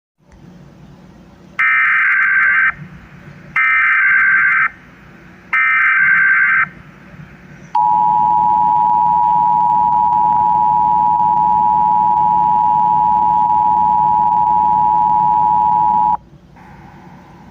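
Emergency Alert System tones: three roughly one-second bursts of SAME digital header data, then the two-tone EAS attention signal held steady for about eight seconds before cutting off abruptly.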